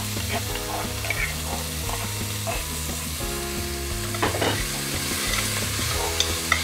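Chopped onion and garlic sautéing in a stainless-steel pot with a steady sizzle, while a metal spoon stirs and scrapes against the pot. One sharper scrape comes about four seconds in.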